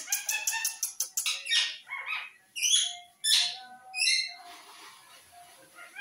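Rose-ringed (Indian ringneck) parakeet calling: a fast run of sharp chirps for the first second or so, then about five harsh squawks that swoop up and down in pitch.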